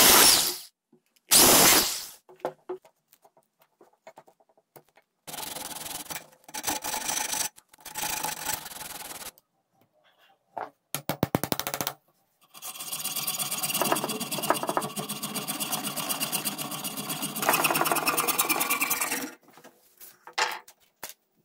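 Hand tools working wood and green bamboo in a string of short spells: two loud scrapes at the start, rasping strokes, and a quick run of clicks near the middle. These are followed by a longer, steady spell of sawing through the bamboo that stops near the end.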